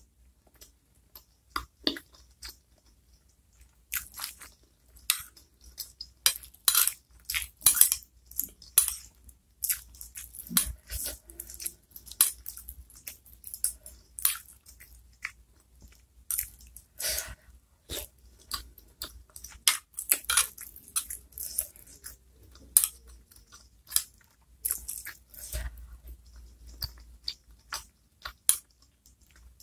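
Close-miked chewing of small, soft chicken meatballs in spicy chili sauce: irregular wet mouth clicks and chewing noises throughout.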